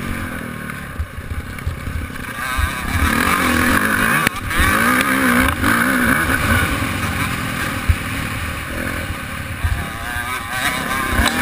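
Dirt bike engine heard on board, revving up and down repeatedly as the rider works the throttle around the track, with wind rumbling on the microphone and short low thumps from bumps.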